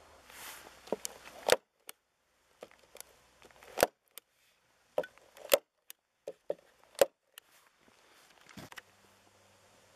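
Hand staple gun firing staples through paper targets into a cardboard backer: a series of sharp snaps, four of them loudest, each with lighter clicks just before it.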